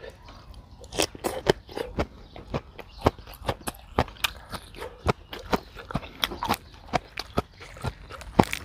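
A person chewing a mouthful of shredded green papaya salad (som tam). There are many sharp, irregular crunches, several a second.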